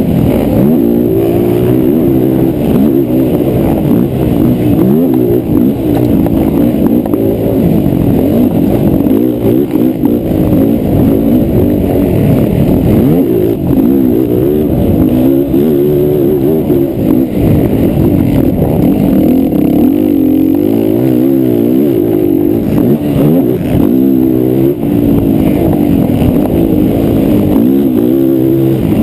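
Racing quad ATV engines revving hard, their pitch constantly rising and falling with throttle and gear changes, several engines overlapping.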